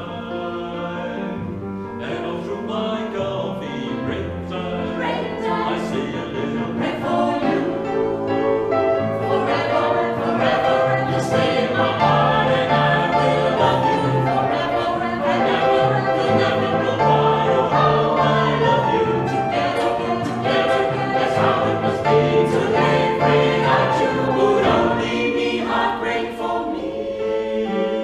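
Mixed vocal group of eight men and women singing in harmony, swelling louder about ten seconds in and staying loud.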